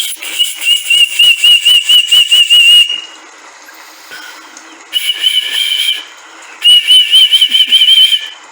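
Pea whistle blown in three trilled blasts, a long one of about three seconds, then two shorter ones, its shrill note warbling rapidly over breathy hiss.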